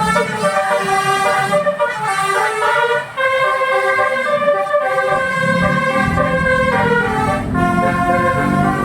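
Basuri 'telolet' musical bus horn playing a melody of held notes that step from pitch to pitch. A low rumble joins underneath about two-thirds of the way in.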